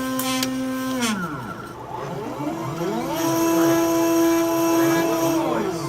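Stepper motors of a homemade Arduino/GRBL CNC machine whining as they drive the axes along their lead screws under G-code. The pitch rises as a move speeds up, holds, and falls as it slows. One move winds down about a second in, and another starts about two and a half seconds in and slows to a stop near the end, with a lower steady tone under it.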